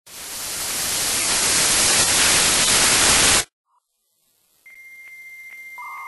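Loud static hiss that swells in over the first second and cuts off abruptly about three and a half seconds in. After a short silence, steady electronic tones begin: a high tone with evenly spaced clicks, then a lower tone joining near the end.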